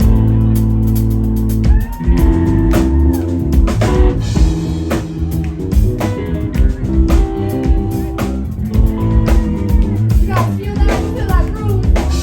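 Live band with electric guitar and drum kit playing a song, loud through a fan's recording. A held chord rings out, then about two seconds in the full band comes in with a steady drum beat under guitar.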